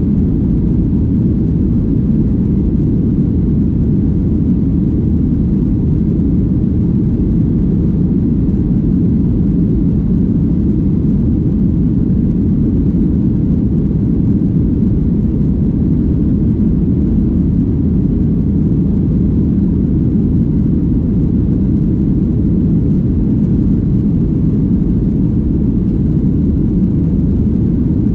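Jet airliner in flight heard from inside the passenger cabin: a steady low rumble of engines and airflow that does not change.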